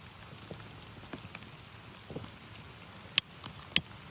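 Steady rain pattering, with two sharp clicks a little over half a second apart near the end.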